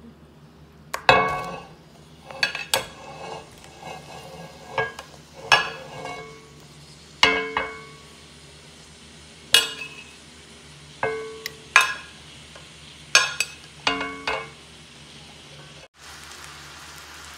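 A series of sharp, ringing clinks as sliced mushrooms are loaded into a hot cast iron skillet with a utensil striking the pan, over a low sizzle of melted butter. Near the end the sizzle grows a little as the mushrooms start to fry.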